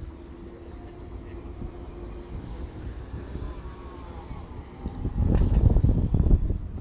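Street traffic heard from a moving bicycle: a steady low rumble of cars and road. About five seconds in, loud irregular low buffeting on the microphone takes over.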